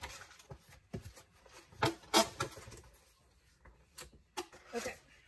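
Scattered knocks and rustles of a cardboard box being handled and moved, loudest about two seconds in, with a few lighter knocks near the end.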